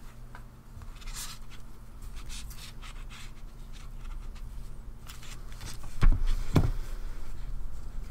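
Nylon paracord rustling and rubbing through the fingers as a knot is worked and pulled tight, with scattered soft clicks over a steady low hum. Two dull thumps about six seconds in, half a second apart, are the loudest sounds.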